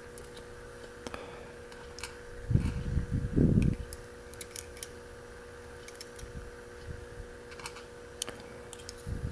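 Small sharp metal clicks and taps of steel tweezers against a mortise lock cylinder as its pin chambers are probed, with a louder low muffled handling noise about two and a half seconds in, over a steady low hum.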